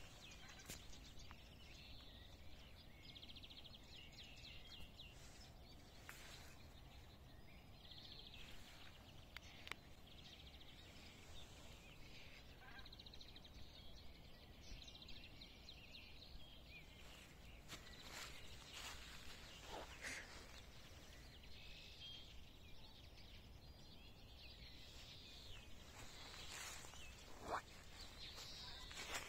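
Faint songbirds singing in the open countryside on a frosty spring morning: scattered chirps and short trills over a low steady background noise, with a few brief taps, the loudest near the end.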